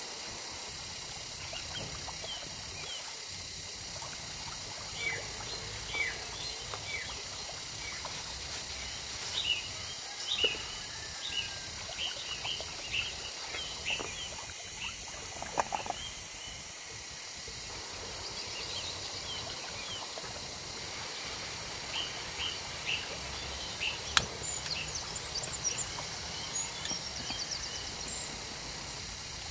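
Birds chirping in many short calls over a steady high-pitched hiss of outdoor ambience. A few soft knocks come from a wok and tofu being handled, and there is one sharp click about three-quarters of the way through.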